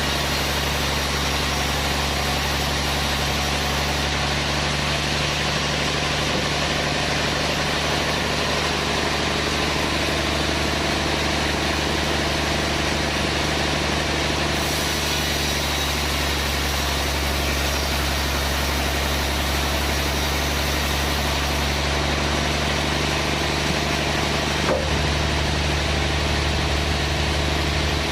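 Sawmill machinery running steadily with a low, engine-like hum. A single brief knock about 25 seconds in, after which the low hum grows a little louder.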